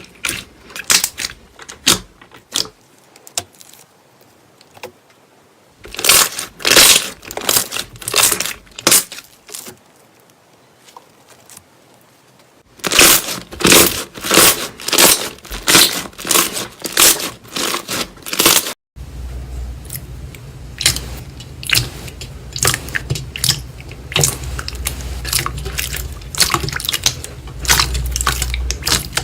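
Slime being squeezed and stretched by hand, giving runs of sharp crackling and popping clicks. There are scattered clicks at first, then two dense bursts of crackling. From about two-thirds through, faster clicks play over a steady low hum.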